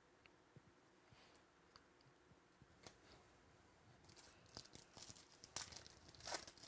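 Faint crinkling and tearing of a trading-card pack wrapper and cards being handled: a few small ticks at first, then a busier run of sharp crackles from about four seconds in.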